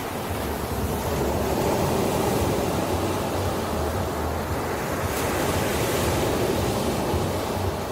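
Ocean waves washing onto a shore, a steady surf that swells after about a second and eases off near the end, with a brief hiss of spray about five seconds in.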